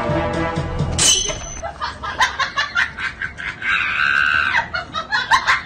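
Background music that stops abruptly about a second in, followed by rapid bursts of laughter with a held shriek near the middle.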